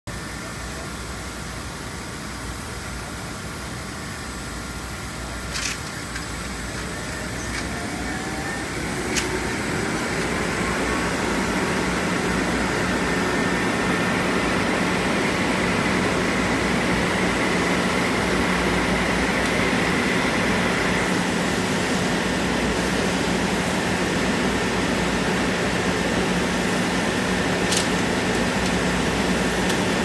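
Two-speed ventilation motor of a vapor degreaser's lip exhaust running, a steady rush of air drawn into the exhaust slot. It grows louder about nine seconds in and settles into a steady hum, with a few faint clicks.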